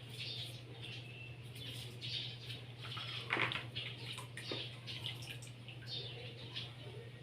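Baby feeding-bottle parts being washed by hand: short, repeated scrubbing and water sounds, with two sharp knocks near the middle, over a steady low hum.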